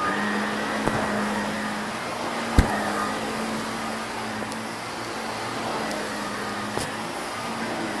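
Shark upright vacuum cleaner running over carpet, a steady motor hum with a few sharp crunchy clicks as debris is sucked up, the loudest about two and a half seconds in.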